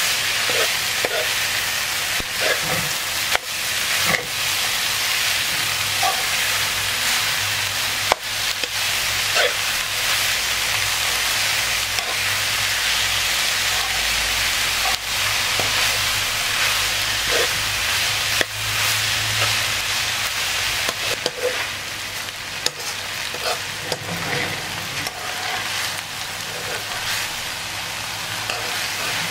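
Diced pork and candied winter melon filling sizzling steadily as it is stir-fried in a granite-coated pan, with a spatula scraping through it and knocking against the pan now and then.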